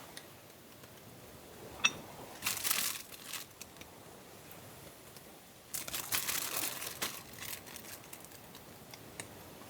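Crinkling from something like a wrapper being handled, in two spells of rustling, the second longer, after a single sharp clink.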